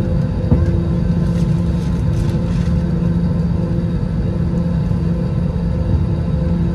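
Steady cabin noise inside an Airbus A320-200 beside the wing: engine rumble and airflow hiss with a constant hum, the level not changing.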